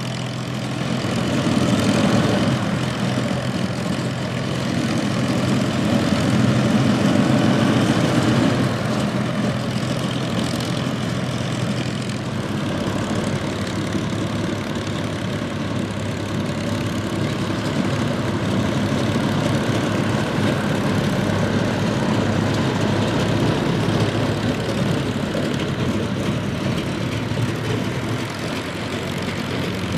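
P-47 Thunderbolt's Pratt & Whitney R-2800 radial piston engine running at low power on the ground, with the propeller turning. The engine note swells louder twice in the first nine seconds, then settles to a steady run.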